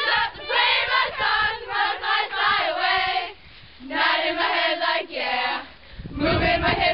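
A group of children singing together, in phrases broken by short pauses.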